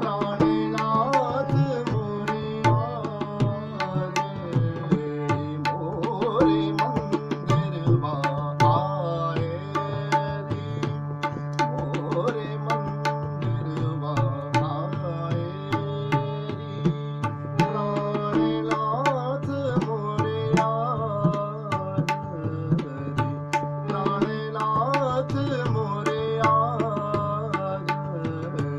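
Hindustani classical vocal in raag Shyam Kalyan: a male voice sings gliding phrases over harmonium, with a steady low drone beneath. Tabla accompanies in teen taal, the sixteen-beat cycle, with quick, dense strokes.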